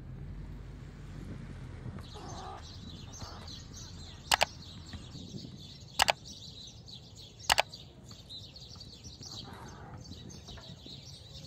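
Three sharp mouse-click sound effects about a second and a half apart, from an on-screen like-and-subscribe animation, over an outdoor background with birds chirping.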